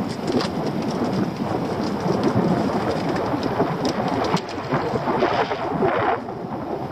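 Wind buffeting the microphone on a small open boat at sea, a steady rushing noise full of crackling water splashes, with a brighter hiss about five seconds in.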